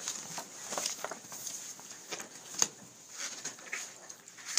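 Papers rustling and being shuffled on a table close to the microphones, with scattered small clicks and knocks.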